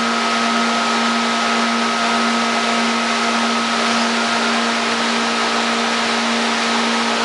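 Steady machine hum and hiss with a constant low tone and a fainter high whine, unchanging.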